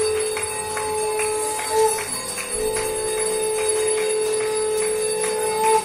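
A conch shell blown in two long held notes, each bending up in pitch as it ends. Behind it, bells and metal are struck in a steady rhythm of two to three strikes a second.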